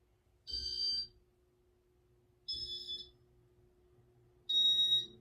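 Casablanca Artisan ceiling fan's control-board beeper sounding three loud, high beeps about two seconds apart, each around half a second long, in demo mode. Their pitch wavers from beep to beep, which sounds like the beeper is starting to wear down.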